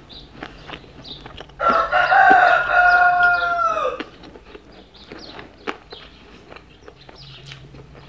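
A loud, drawn-out animal call, held for over two seconds and falling in pitch as it ends, with soft chewing clicks around it.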